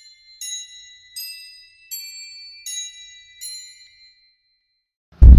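A slow, sparse melody of high, tinkling bell-like notes, glockenspiel or music-box in character, one note struck about every three-quarters of a second and left to ring. After about a second of silence a sudden loud, low rumble starts near the end.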